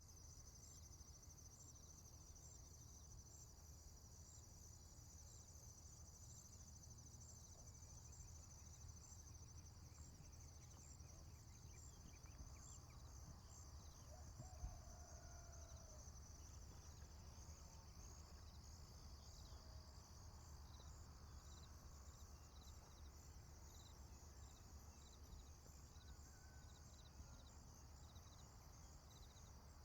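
Faint, steady insect chirping: high, rapid, evenly repeating pulses over a low hum.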